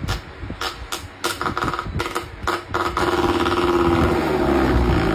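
A cat batting at a running pedestal electric fan: its paw strikes the fan in a string of sharp clicks amid a rapid mechanical rattle. About three seconds in, the rattle turns steady and louder.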